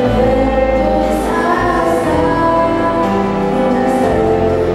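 Children's choir singing with instrumental backing and a steady bass, a girl's voice carried through a handheld microphone.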